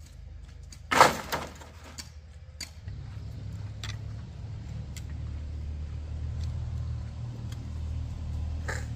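A single hard chopping blow about a second in, followed by a few lighter knocks and clicks of a hand tool at work. From about three seconds in, a steady low drone sets in underneath.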